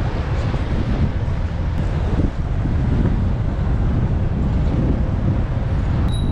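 Wind buffeting the microphone of a camera worn by a cyclist riding through city traffic, a steady low rumble of air and road noise. A thin high-pitched tone starts just before the end.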